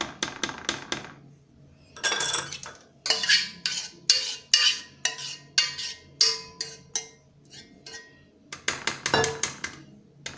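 A whisk and then a metal spoon scraping and tapping against the inside of a metal saucepan as thick chocolate custard is scraped out of it. The strokes come as quick, irregular clinks and scrapes.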